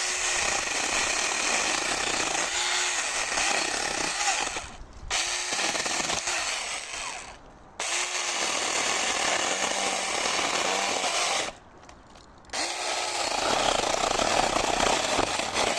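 Battery-powered plastic mini chainsaw cutting through a plum branch: its small electric motor running and the chain rasping through the wood. The saw stops briefly three times and starts up again each time with a quick spin-up.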